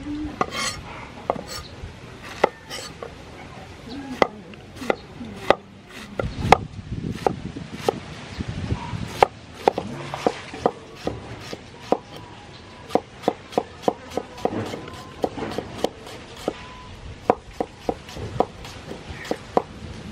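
Cleaver chopping banana flower on a wooden cutting board: a run of sharp, uneven knocks of the blade on the board, at times several a second.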